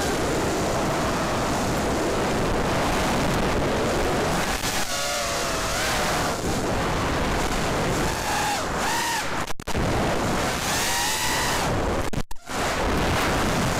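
Armattan F1-4B racing quadcopter in flight, heard on its onboard camera: heavy wind rush with the whine of its Cobra 2204 2300kv motors and three-blade props rising and falling with throttle. The sound cuts out briefly twice, about two-thirds through and again near the end.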